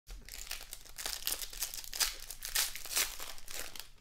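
Foil wrapper of a Panini Prestige football card pack crinkling and tearing as it is ripped open by hand: a dense run of crackles, louder about two and three seconds in.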